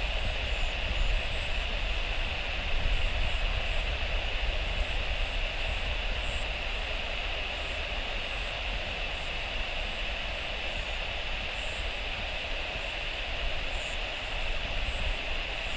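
Jet airliner in Lion Air livery on its takeoff roll, its twin engines at takeoff power making a steady roar that slowly fades as it accelerates away down the runway.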